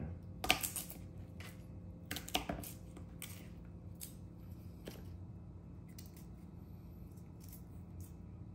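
Kitchen handling sounds: about five sharp clicks and taps of utensils in the first five seconds, the loudest near the start, then only faint ticks over a low steady hum.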